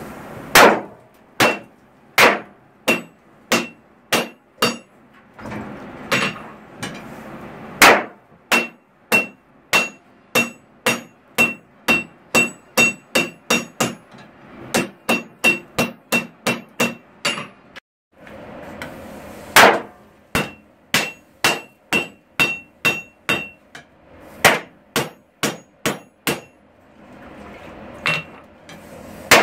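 Blacksmith's hand hammer striking red-hot steel on an anvil to knock off forge scale. Runs of sharp blows come about two to three a second, with the anvil ringing on many of them and the first blow of each run the loudest. Between runs there is a steady hiss.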